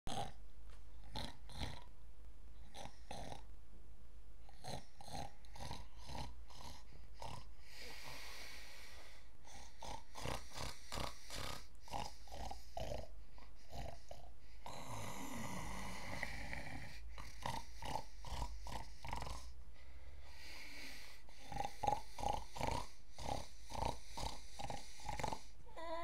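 A man's mock snoring, with long snores about eight and fifteen seconds in and many short, quick clicks and snorts between them.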